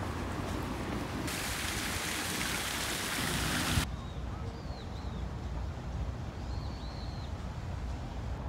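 Low wind rumble on the microphone, with a loud steady hiss like rushing water from about one second in that cuts off abruptly just before four seconds. After it, a few short high bird chirps.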